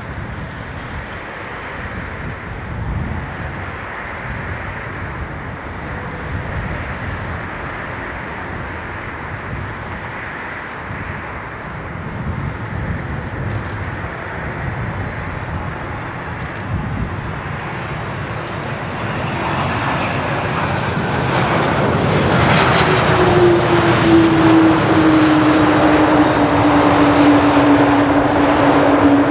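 An Airbus A310-304's General Electric CF6-80C2 turbofans landing: a steady jet rush that grows much louder in the last third as the airliner touches down and rolls out, with a strong whine that slowly falls in pitch near the end.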